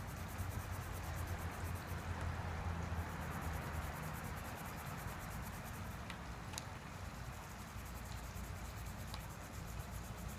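Felt-tip mini marker rubbing back and forth on sketchbook paper while colouring in, over a low steady hum.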